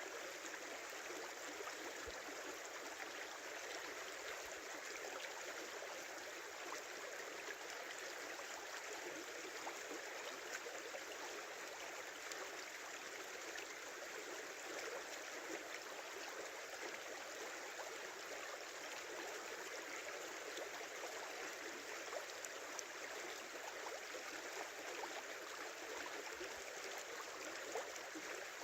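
River water flowing and babbling steadily: an even, unbroken rush with little deep rumble.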